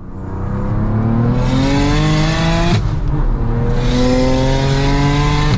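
Single-turbo BMW N54 straight-six (GT35 turbo) accelerating hard, heard from inside the cabin: the engine note rises through one gear, breaks off for a gear change a little under three seconds in, then rises again through the next gear.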